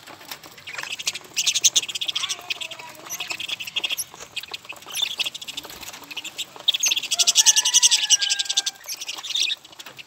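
Flock of budgerigars chattering and warbling: a dense, rapid chatter that swells loudest briefly about a second and a half in and again from about seven to nine and a half seconds.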